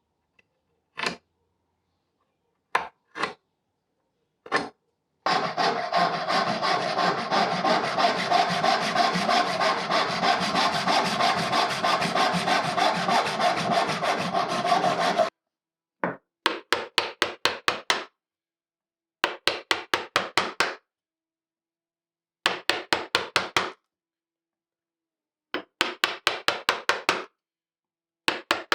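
Hand saw cutting mahogany: a few single strokes, then about ten seconds of quick unbroken sawing, then several short runs of six or so strokes each, each run cut off suddenly.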